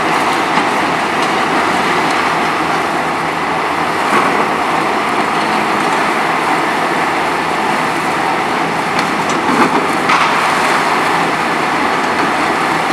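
Hitachi ZX 300LC-6 excavator's diesel engine running steadily under load while its hydraulic concrete crusher works, with a few sharp cracks about four seconds in and again around nine to ten seconds in.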